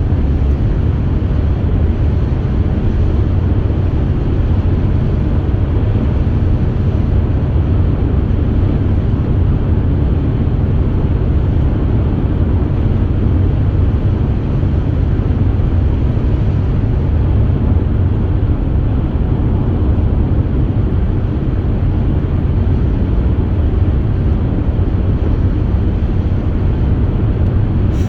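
Steady low rumble of road and engine noise inside a moving car's cabin, with no breaks or sudden sounds.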